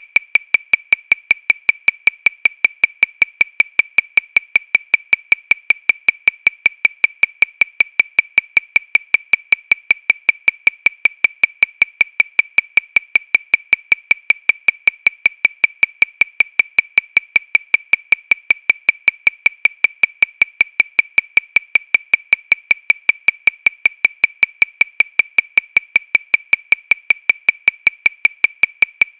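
Metronome clicking at 314 beats per minute: identical short, high clicks, about five a second, at a perfectly steady tempo.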